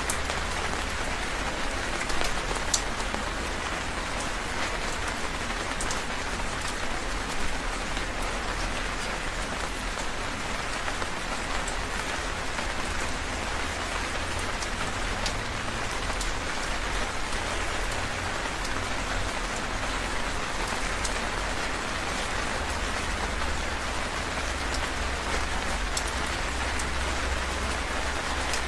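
Heavy rain falling steadily, a dense even hiss with scattered sharper drop splashes and a low rumble underneath.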